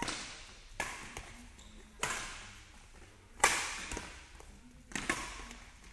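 Badminton rally: rackets striking a shuttlecock about five times, a sharp crack every second or so, each ringing on in a large sports hall. The hit about three and a half seconds in is the loudest.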